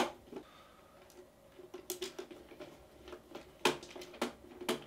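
Screwdriver working the terminal screws of a Nest Heat Link as mains wires are moved onto it: scattered light clicks and scratches, the sharpest right at the start.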